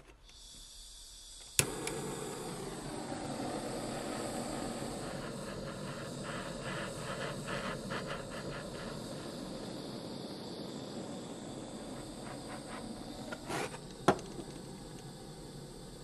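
Handheld butane torch: gas hissing from the nozzle, a sharp click of the igniter about a second and a half in, then the steady rush of the lit flame as it heats the bent lighter barrel for straightening. Another sharp click comes near the end.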